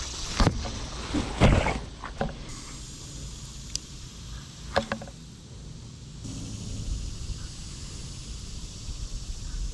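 Leaves and branches of a shrub rustling and crackling as a hand pushes through them, then a couple of sharp clicks from handling a spinning rod and reel, over a low steady rumble.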